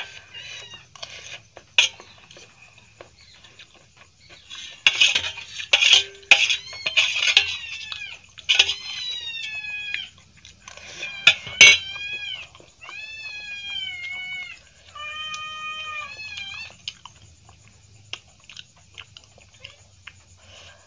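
Metal spoon and fork clicking and scraping on a stainless steel plate. In the second half comes a series of drawn-out animal calls, each with a clear pitch that arches and slides downward.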